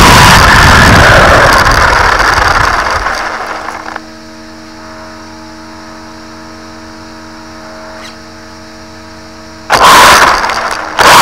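A 1/10 scale electric RC truggy heard from a camera mounted on the truck: motor and tyres running loud at speed, dying away as it slows and stops about four seconds in. While it stands there is a quieter steady hum of several tones, then two short loud bursts of throttle near the end as it pulls away.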